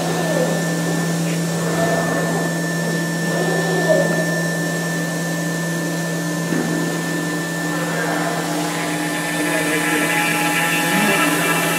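5-axis CNC router's spindle running at about 10,000 rpm while machining a foam mould: a steady, even hum.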